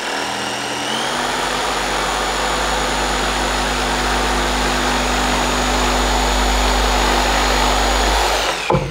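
Corded jigsaw running at its highest speed with the orbital action turned off, its blade cutting straight across a wooden board. The motor whine climbs to full speed in the first second, holds steady through the cut, and winds down near the end.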